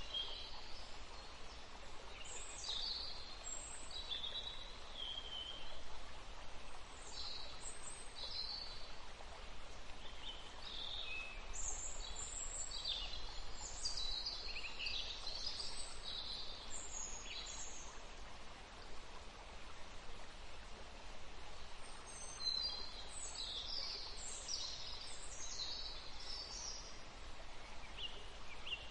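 Small songbirds chirping and trilling in clusters of short high notes, with a lull in the middle, over a steady outdoor background hiss.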